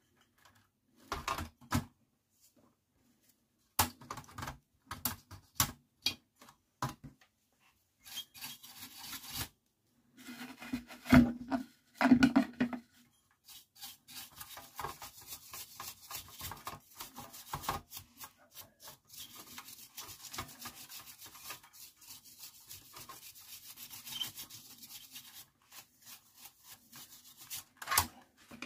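Hand work on amplifier parts: scattered clicks and knocks of handling in the first half, two louder knocks about eleven and twelve seconds in, then rapid rubbing strokes of cleaning that run on for the rest, with one sharp knock near the end.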